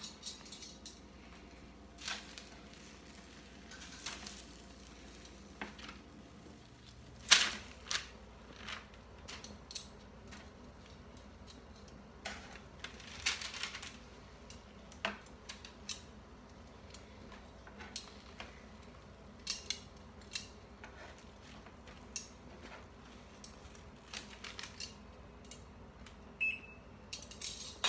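Metal kitchen tongs clicking and tapping as chicken breasts are turned over on a parchment-lined baking sheet: scattered sharp clicks, the loudest about seven seconds in, over a faint steady hum.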